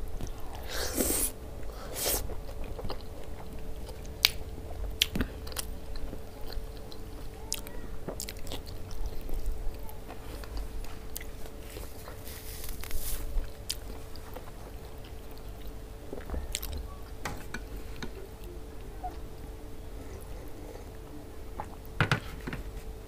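Close-up chewing of a handful of okra stew with rice and meat, eaten by hand, with scattered wet mouth clicks. A faint steady hum runs underneath.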